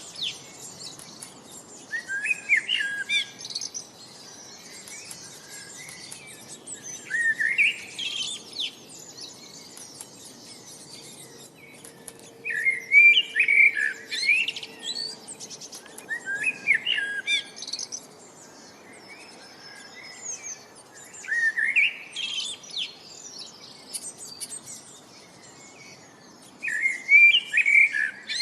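A songbird singing short, quick chirping phrases, one every few seconds, with fainter bird chirps and a steady background hiss in between.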